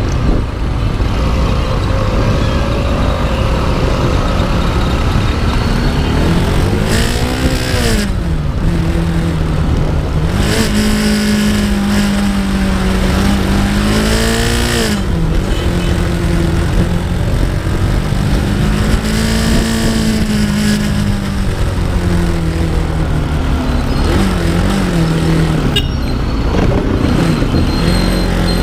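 Motorbike engine under way, its pitch climbing and dropping several times as the bike speeds up and eases off, over a steady low rumble of road noise.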